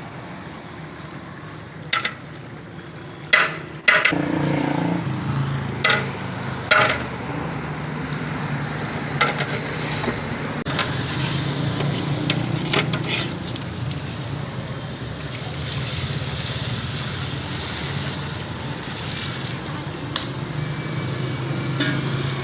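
Steady street traffic hum with several sharp metal clanks, mostly in the first seven seconds, typical of a ladle striking a large cooking pot.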